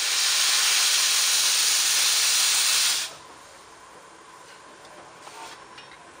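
Steam locomotive venting steam low at its front end with a loud, steady hiss that cuts off abruptly about three seconds in, leaving only a faint background.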